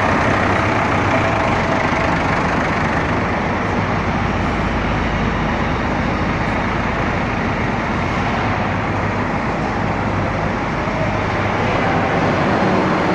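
Preet backhoe loader's diesel engine running steadily.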